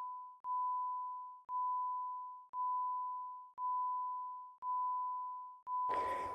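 Electronic level-crossing bell ringing: a single clear ding about once a second, each one dying away before the next. Near the end a short rush of noise comes in under it.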